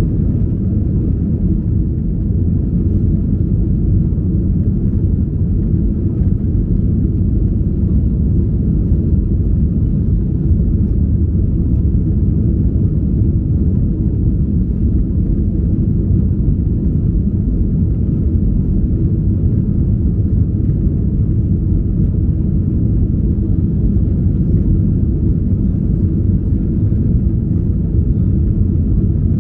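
Steady low rumble of an Airbus A321's engines and airflow, heard inside the passenger cabin during the climb after takeoff.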